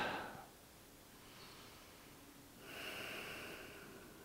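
A person breathing slowly and audibly close to the microphone. A loud breath fades out in the first half second, and a second long, soft breath comes near the end, lasting about a second and a half.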